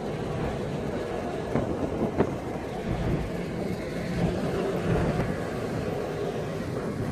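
Toyota Land Cruiser 80 series driving, heard from inside the cabin: a steady rumble of engine and tyre noise, with a couple of light knocks about one and a half and two seconds in.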